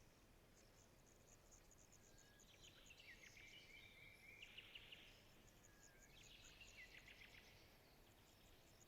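Faint forest ambience: birds calling and trilling in two spells over a rapid, regular high chirping like an insect's.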